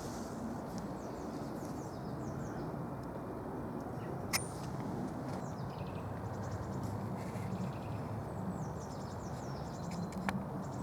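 Steady outdoor background hum with small birds chirping now and then, and one sharp click about four seconds in.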